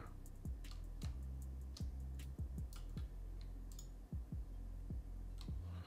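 Computer mouse clicks and keyboard presses, about a dozen irregular clicks, as edges are Alt-clicked to select a loop, over a steady low hum.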